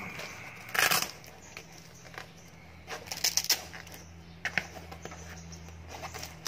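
Handling noise from a fabric jig-storage bag being unfolded and smoothed out: rustling and scuffing of cloth and mesh. The loudest rustle comes just before a second in, and a quick run of sharp clicks follows around three seconds in.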